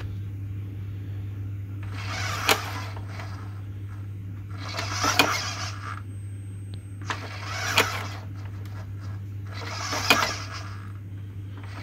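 Retractable landing gear of a large RC model jet cycling: short mechanical whirring runs about every two and a half seconds, each ending in a sharp click, over a steady low hum.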